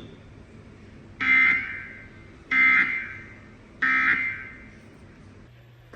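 Emergency Alert System end-of-message tones: three short digital data bursts, evenly spaced about a second and a quarter apart, each with a brief fading tail. They mark the end of the AMBER Alert broadcast.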